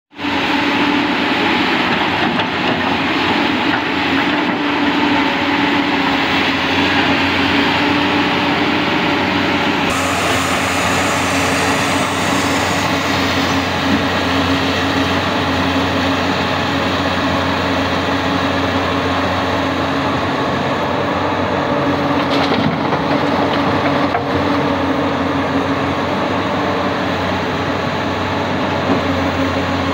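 Komatsu PC200 hydraulic excavator's diesel engine running steadily at working speed close by, with a steady hum. A hiss comes in about ten seconds in and fades over a few seconds.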